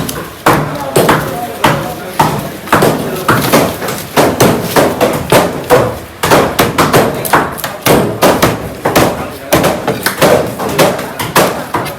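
A heavy knife chopping through fish on a cutting block: sharp thuds at about two a second, with voices in the background.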